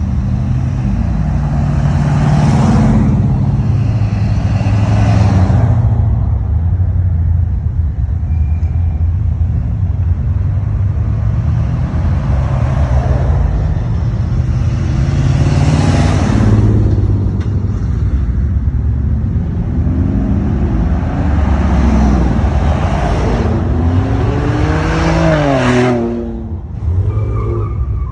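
Cars and pickup trucks accelerating past one after another, their engines swelling loud as each goes by, about three passes in all. The last one revs higher and higher, then lets off sharply near the end.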